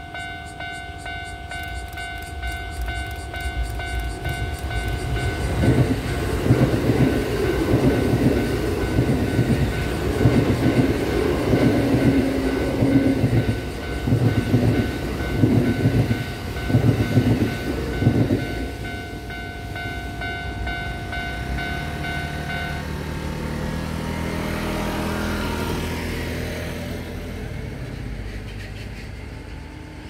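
A ten-car Kintetsu electric train (8400 series and 9020 series units coupled) passing close by at a level crossing, its wheels clattering loudly in a run of beats over the rail joints for about thirteen seconds. The crossing's warning bell rings steadily and cuts off about two-thirds of the way through. Near the end a drone rises and then fades.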